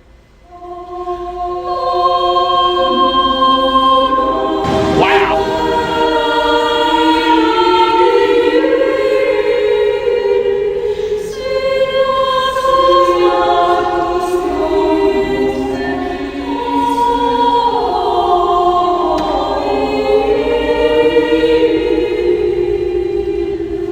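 Background choral music: a choir singing long, slow held chords. A brief sweeping sound cuts across it about five seconds in.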